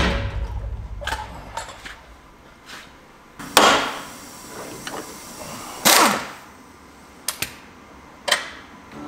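Hammer and wrench striking steel on a truck's front steering and axle parts: a few light knocks, then two loud ringing metal blows about three and a half and six seconds in, followed by some sharp clicks.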